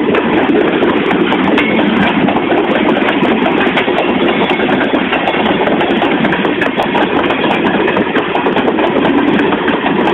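Loaded freight train's covered hopper cars rolling past close by, a steady rumble and clatter of steel wheels on the rails.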